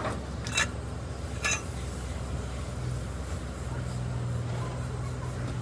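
Two sharp metallic clinks, about a second apart, of a steel wrench against the wheel nuts on a road roller's wheel rim, over a steady low hum.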